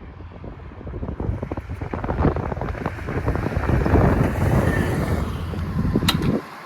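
Can-Am Defender side-by-side running hard on a naturally aspirated acceleration run, heavily buffeted by wind on the microphone. It grows louder through the middle and cuts off sharply near the end.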